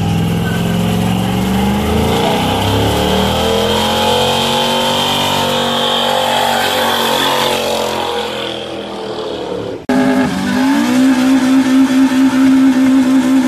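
Pickup truck engine revving through a burnout: its pitch climbs and then falls away over a hiss of spinning tyres. About ten seconds in, the sound cuts abruptly to another car's engine held at high revs, its note pulsing quickly and regularly as its own burnout begins.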